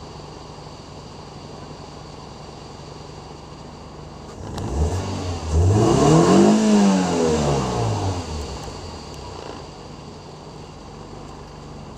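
Toyota Vios 2NZ four-cylinder petrol engine idling, then revved once about halfway through, its pitch rising and falling back to idle over a few seconds. The mechanic traces this engine's misfire to ignition coil number 1.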